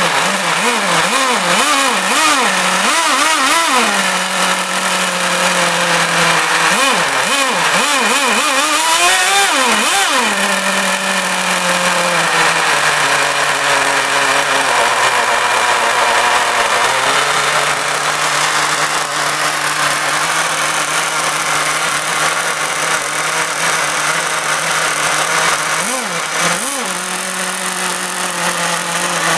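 Small Dynamite .15 nitro glow engine of a 1:12 RC hydroplane running on the bench, idling steadily with a series of quick throttle blips in the first few seconds, another burst of revving about a third of the way in, and two short blips near the end.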